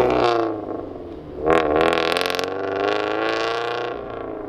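Subaru BRZ's flat-four engine through a straight-piped, valved center-exit exhaust with the valve open, as the car pulls away. The note drops off about half a second in, comes back suddenly and loud about a second and a half in with a rising then steady pitch, and fades as the car moves off.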